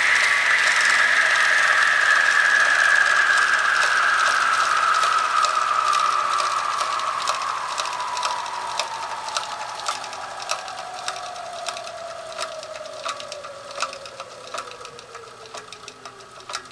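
Modified turntable driven by a brushed motor, slowing down: its high whine falls steadily in pitch and fades. Irregular ticks and clicks stand out more and more from about a third of the way in.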